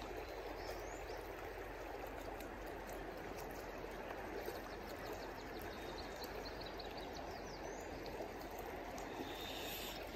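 Steady rushing of a river's current over a shallow run, an even wash of flowing water with no breaks.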